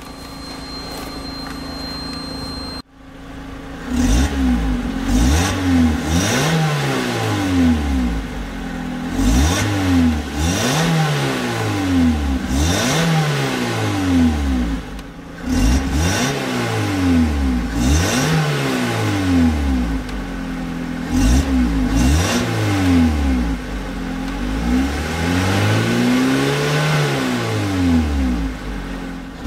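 2011 Lotus Elise SC's supercharged 1.8-litre four-cylinder engine, heard from inside the cabin with the car standing still. It idles for a few seconds, then is revved again and again: about a dozen blips, each rising and falling over a second or two, the last held longer.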